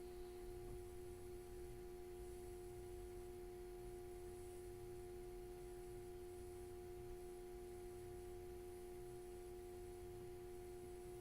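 Faint steady background hum: a few held tones, one low tone strongest, with no other sound over it.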